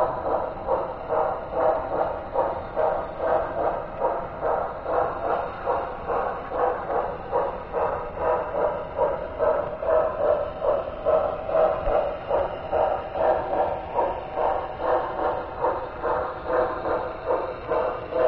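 HO scale model train rolling along the track, heard up close from a camera riding on the train: a steady rhythmic clatter of about two to three beats a second.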